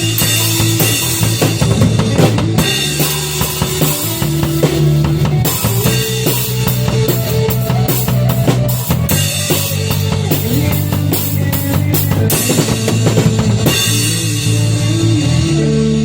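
Instrumental band music: a drum kit with bass drum and snare playing a beat over held chords that change every second or two.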